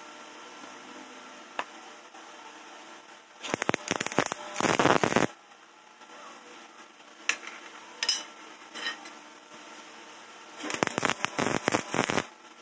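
MIG welder welding a steel motorcycle exhaust pipe: two bursts of crackling, each about one and a half to two seconds long, the first about three and a half seconds in and the second near the end, with a few single clicks between them.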